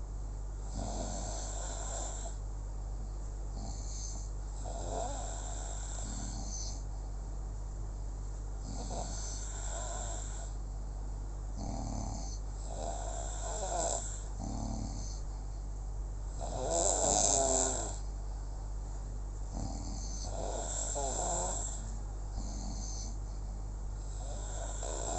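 Snoring in sleep: a rasping snore on each breath, repeating every few seconds, with one louder snore about two-thirds of the way through, over a steady low hum.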